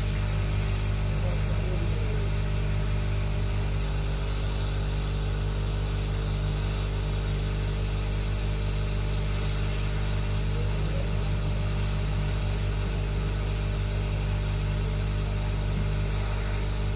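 Hot air rework station blowing steadily with a constant low hum, as it heats an IC off a phone motherboard to desolder it.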